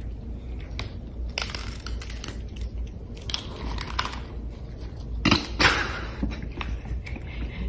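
Cats crunching dry kibble from a bowl: irregular, close-up crunches, loudest a little past halfway.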